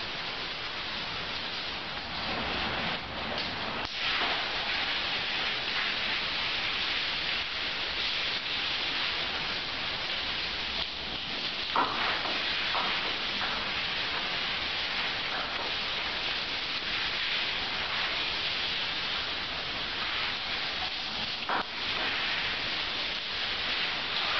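Shower water running steadily, spraying onto a person and a tiled floor as a constant hiss. A couple of faint knocks come about halfway through and again near the end.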